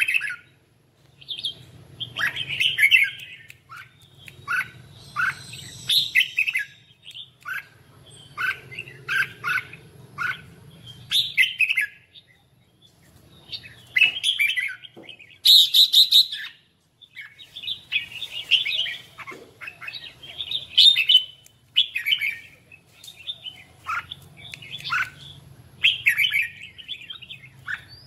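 Red-whiskered bulbul singing in repeated bursts of short, bright chirping and whistled phrases separated by brief pauses.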